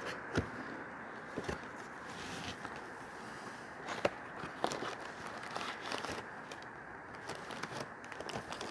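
Paper leaflets and cardboard packing rustling, with scattered light clicks and taps, as they are lifted out of a cardboard box.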